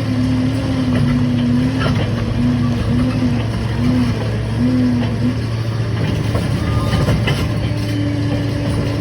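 Liebherr 746 crawler dozer's diesel engine running steadily under work, its note dipping and recovering several times between about two and five seconds in, with a few sharp knocks near two and seven seconds in.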